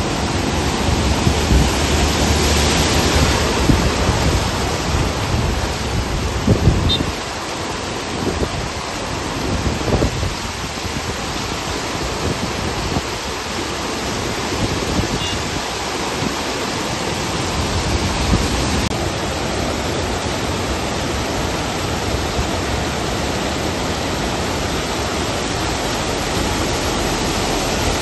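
Floodwater rushing across a road and pouring over its edge in a steady, loud roar of water, with rain. An SUV splashes through the water during the first few seconds.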